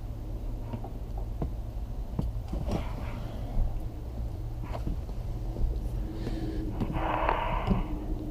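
Scattered light clicks and taps of a new chrome window crank handle and its retaining clip being worked onto the door's window spindle, over a steady low hum. A short breathy noise comes about seven seconds in.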